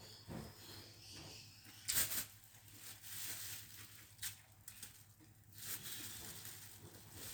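A person eating noodles close to the microphone: chewing and wet mouth noises, with a few sharp clicks, the loudest about two seconds in.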